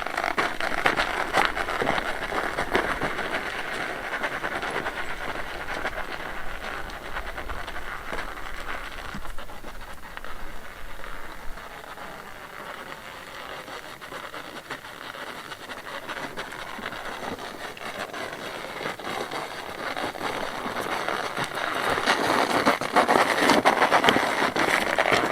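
Dry sand, gravel and cement mix being scraped and shovelled, a continuous gritty rasp that eases off in the middle and grows louder near the end.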